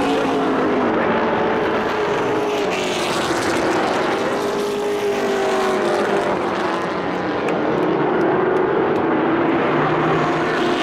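A field of race truck engines running hard around a short oval track, several at once, their pitches rising and falling as the trucks pass and go through the turns.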